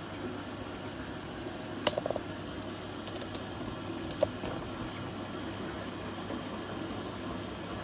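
Candy GrandO Vita Smart Fi+ washing machine running mid-cycle: a steady wash noise from the turning drum, with a quick cluster of clicks about two seconds in and a single click about four seconds in.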